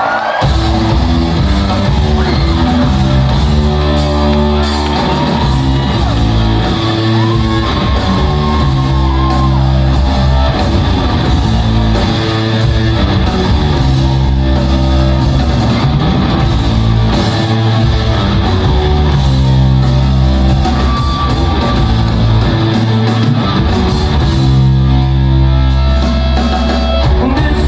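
Rock band playing live in a large hall: loud electric guitars, bass and drums in a heavy, repeating riff.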